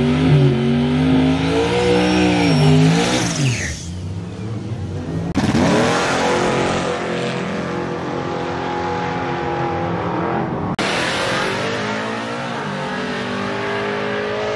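Drag-racing pickup truck engines revving at the starting line and then accelerating hard away down the strip, the engine note climbing steadily as each truck pulls away. The sound changes abruptly twice, a few seconds apart, as one run gives way to the next.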